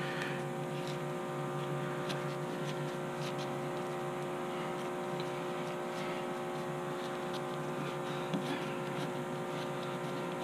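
Steady machine hum made of several fixed tones, with a few faint scattered clicks.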